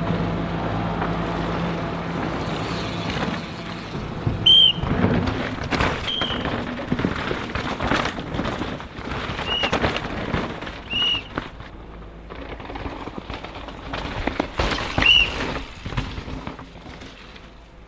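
Downhill mountain bikes running hard over rough, rocky trail: tyres on dirt and stone, with chain and suspension rattling and sharp knocks as the bikes hit rocks and roots. About six short high squeaks come and go through it, and a low steady hum is heard for the first few seconds.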